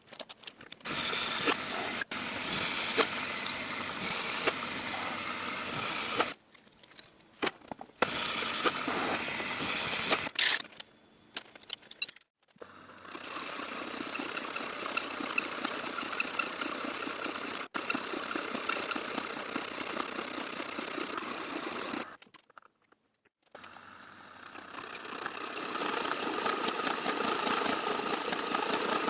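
A manual milling machine running and cutting EN8 steel, heard as a steady machine noise in several clips with abrupt cuts to near silence between them. A sharp clink sounds about ten seconds in.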